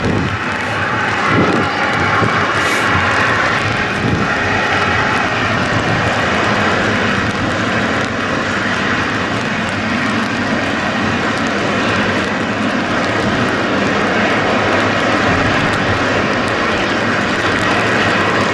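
Boeing 777-300 airliner's twin jet engines running steadily as it rolls past on the ground: a constant roar with a faint steady whine.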